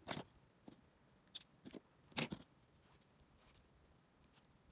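A few faint, short snips and taps from small spring-type thread snips cutting stitching thread and being handled on a cutting mat, the loudest about two seconds in.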